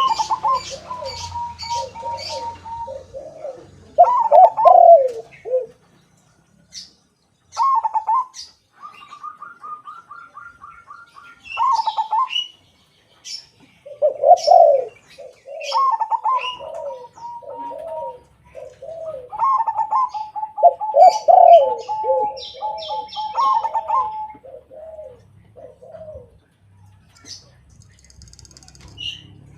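Zebra dove (crossbred perkutut) and white spotted dove (tekukur) cooing in turn: the zebra dove gives rapid, higher trilled coos, the spotted dove lower repeated coos. Short high chirps come in between.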